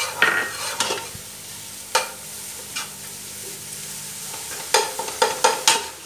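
Metal ladle scraping and knocking against a coated cooking pot while a grated-coconut seasoning is stirred and fried, with a light sizzle between strokes. The strokes come in a few scattered scrapes, then a quick run of four near the end.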